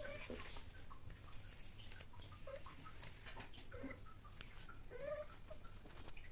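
Cats mating: a few short, soft chirping calls spaced a second or so apart, with faint clicks between them.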